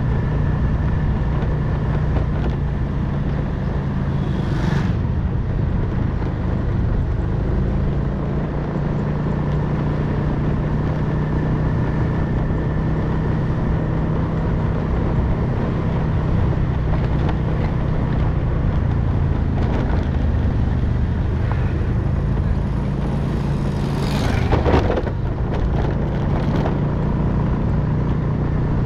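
Motorcycle engine running steadily while riding along at a constant pace, with road and wind noise. A brief louder rush of noise comes late on.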